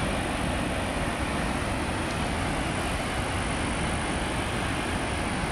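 Waterfall in a rock canyon rushing steadily, an even noise with no separate events.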